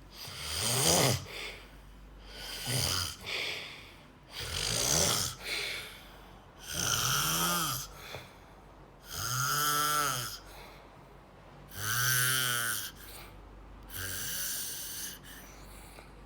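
Snoring: seven snores in a row, about one every two seconds, several with a droning tone that rises and falls in pitch.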